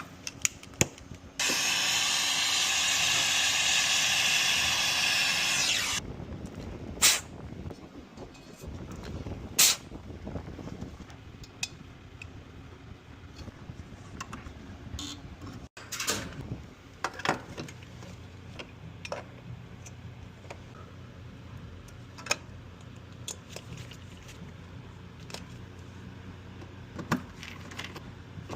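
A loud, steady hiss of gas escaping under pressure for about four and a half seconds, cutting off sharply, followed by scattered clicks and knocks of hand work on the refrigeration unit.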